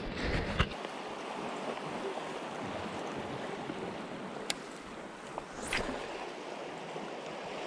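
Steady rushing wash of sea surf on a rocky shore, with a sharp click about halfway through.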